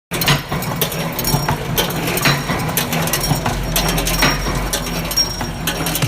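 Small wire-forming machine running, bending wire into hooks or buckles, with metallic clicks and clatter about twice a second over a steady motor hum.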